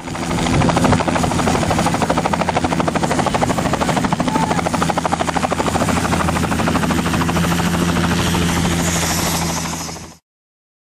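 Loud helicopter running, with the fast, even beat of its rotor blades over a steady engine hum. The sound cuts off suddenly near the end.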